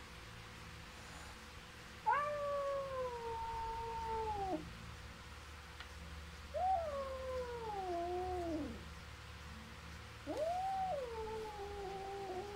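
Cat caterwauling: three long, drawn-out yowls a couple of seconds apart, each rising sharply at the start and then sagging and wavering down in pitch. It is the warning yowl of a cat in a standoff with another cat.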